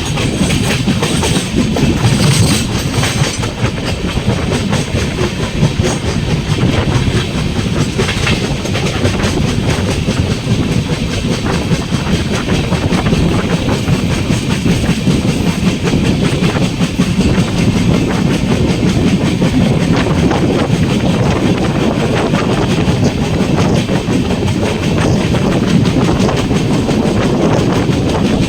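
LHB passenger coach running on the track, with a steady rumble and the clickety-clack of its wheels over the rails.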